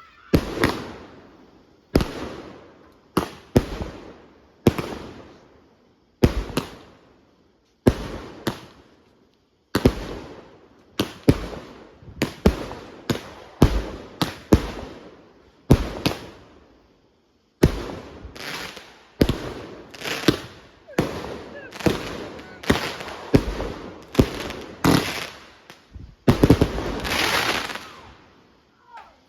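Consumer fireworks going off in a long, irregular series of sharp bangs, each with a short fading tail, spaced half a second to a couple of seconds apart. Near the end comes a longer, louder stretch of crackling bangs.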